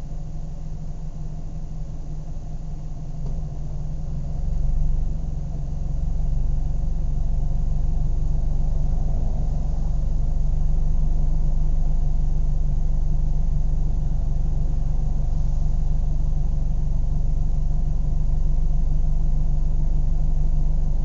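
Car engine running with a steady low hum, growing louder about four seconds in as the rumble deepens, then holding at an even pitch.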